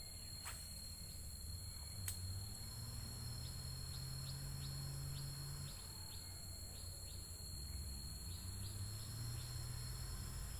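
Outdoor swamp ambience: insects buzzing steadily, and a bird giving a run of short falling chirps about twice a second from about three seconds in. Two sharp clicks sound in the first two seconds, over a low hum.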